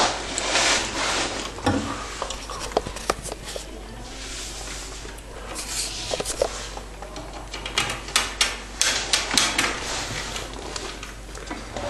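Pet rodents scrambling about inside a wire cage: irregular light clicks, scratches and rattles, thickest in the second half.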